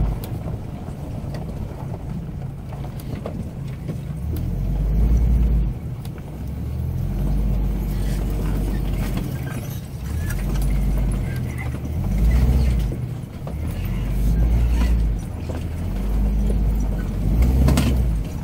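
Desert brush scraping and scratching along the sides of a Class C motorhome ('desert pinstriping'), over the low rumble of the RV crawling in low gear across a rocky dirt track. The rumble swells and eases every second or two.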